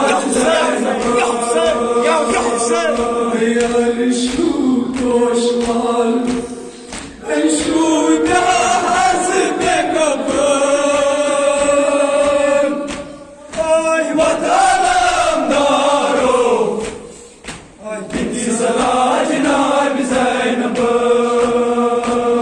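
A group of men chanting a Kashmiri noha, a Muharram mourning elegy, together in long held sung phrases, with a few short pauses between phrases.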